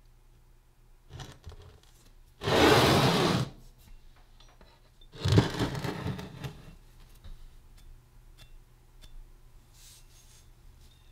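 Sandblasted cast-iron vise parts being handled on a wooden workbench. There is a brief rustle, then a loud scrape lasting about a second about two and a half seconds in, and a sharp knock with a shorter scrape after it a few seconds later, as a part is set down and moved on the bench. Light taps follow.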